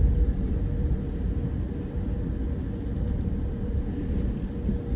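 Car driving on a road, heard from inside the cabin: a steady low rumble of engine and tyre noise with a faint constant hum.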